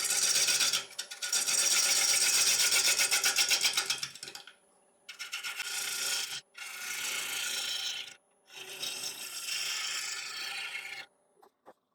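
Bowl gouge cutting dry ash on a wood lathe: five separate passes of a loud scraping hiss, the longest with a fast rhythmic pulse from an interrupted cut on the uneven, voided blank.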